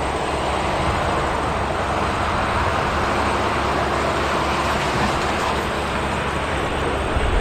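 A jet airliner's engines, heard as a steady, even rushing noise with a low hum beneath.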